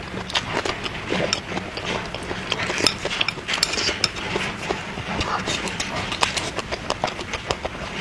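Close-miked eating sounds: a person chewing with mouth noises, many irregular wet clicks and smacks, several a second.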